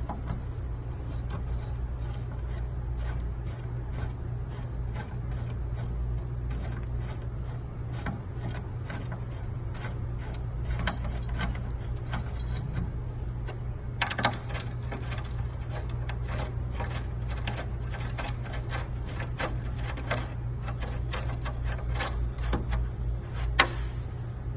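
Irregular small clicks and rattles of hands fastening metal mounting plates onto a sign cabinet, denser and louder about halfway through, over a steady low hum.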